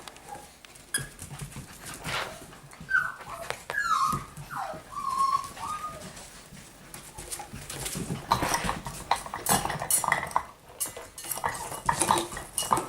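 Cockapoo puppy whimpering in a few short, high, wavering whines, the sound of a puppy stuck under a couch and unable to get out. From about the middle on there is a run of quick clicking and rattling.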